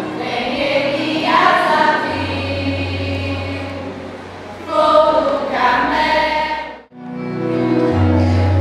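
A choir singing a Christian hymn over a held low accompanying note. It cuts off abruptly about seven seconds in, and another piece of music with steady held notes begins.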